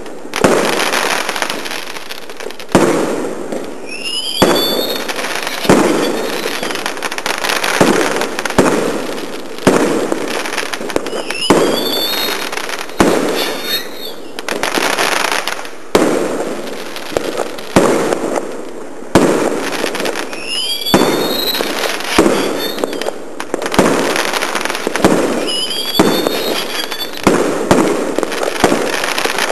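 Fireworks going off in a steady run of sharp bangs every second or two, with crackling between them and several rising and falling whistles.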